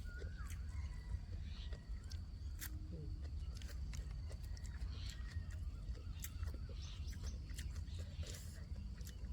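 Outdoor ambience: a steady low rumble, as of wind on the microphone, with scattered small clicks and a few faint bird chirps.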